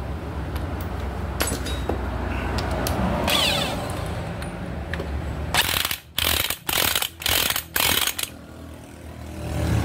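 A steady low engine hum in the background with a few light metallic clicks. Near the end, four short, loud hissing blasts follow one another in quick succession.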